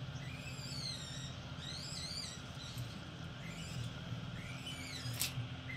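Repeated high, squeaky animal chirps that slide up and down in pitch, with a sharp squeak about five seconds in, over a steady low hum.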